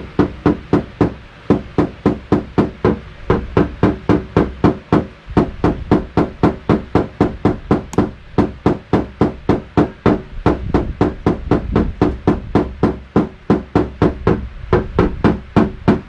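Paintless dent repair knockdown hammer with a rubber ball tip tapping a car's front fender in a fast, even rhythm of about four taps a second, knocking down the crown around a dent. The tapping pauses briefly about five seconds in and again near the end.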